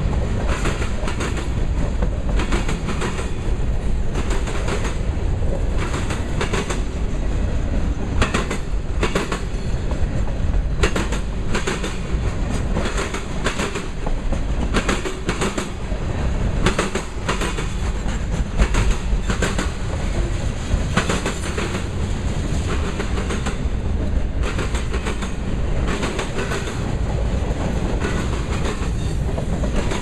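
Freight cars rolling past close by: a steady low rumble of steel wheels on rail, broken by frequent sharp, irregular clacks and bangs from the wheels and couplers.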